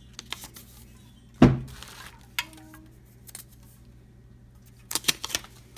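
Aluminium beer cans knocking and clinking against each other and the box as they are handled, with one heavy knock about a second and a half in and a quick run of clinks near the end.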